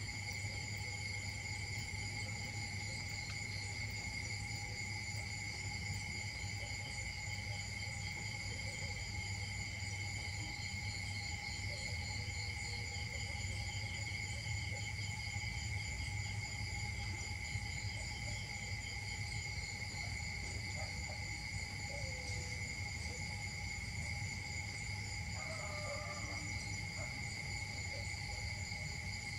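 Steady chorus of insects: several unbroken high-pitched drones at different pitches over a low steady rumble, with a few faint short calls here and there.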